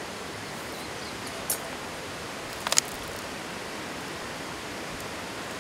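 Steady rushing of a mountain stream, with two brief clicks about one and a half and nearly three seconds in.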